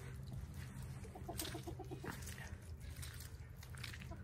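Chickens clucking softly, with a quick run of short low clucks between one and two seconds in.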